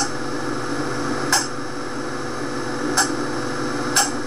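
Steady background hiss with a faint steady hum, broken three times by a short, sharp click, the clicks one to one and a half seconds apart.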